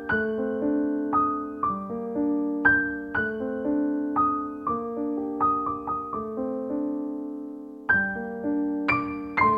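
Background music of soft piano, slow chords and single notes that ring out and fade; the playing thins out and dies away briefly, then starts again near the end.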